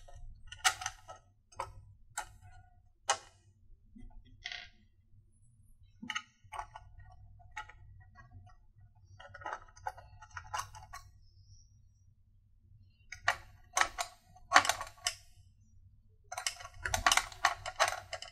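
Scattered small clicks and light clatter of hands handling the metal and plastic parts at a motherboard's CPU socket, with a denser run of clicks near the end.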